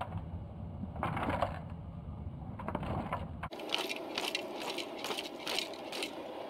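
A big pot of shellfish boil (crab, clams and prawns with corn and vegetables) being shaken by its handles, the shells and pieces rattling against the pot in quick rhythmic shakes, about three a second. A low steady rumble runs under the first half.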